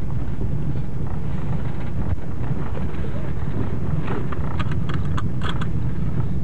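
Car driving slowly on a snow-covered road, heard from inside the cabin: a steady low rumble of engine and tyres, with a short run of clicks and crackles about four to five and a half seconds in.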